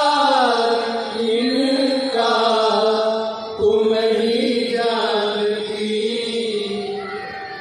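A man singing a Hindi devotional chaupai in long, drawn-out held notes that slide between pitches, with musical accompaniment.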